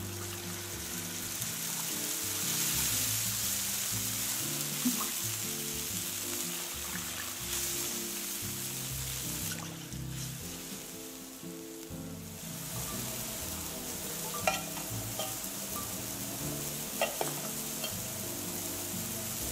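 Broth simmering in a large paella pan with a steady sizzling hiss, and a metal ladle stirring and clinking against the pan a few times in the second half. Soft background music plays underneath.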